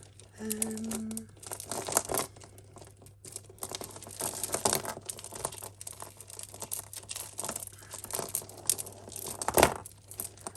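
Hands working through a tangled heap of costume jewellery: chains and beads clicking and rattling against each other with handling rustle, and one sharper, louder clack near the end.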